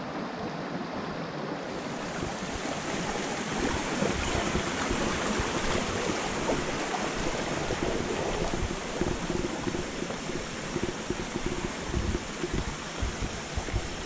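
Shallow mountain stream rushing over rocks as a steady hiss, a little louder from about three seconds in, with irregular low thumps and rumbles.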